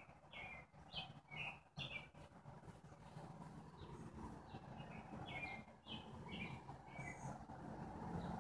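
Faint bird chirping: short high chirps, often stepping down in pitch, in a bout about a second in and another from about four to seven seconds, over a low steady background rumble.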